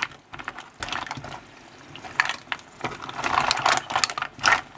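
Mussels in their shells clicking and clattering against each other and the metal saucepan as a silicone spatula stirs them through tomato sauce, with wet sloshing of the liquid. The clicks come irregularly throughout.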